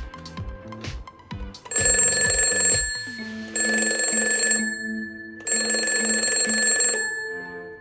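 Background music with a steady beat, then three loud bursts of electronic alarm-like ringing, each about a second long.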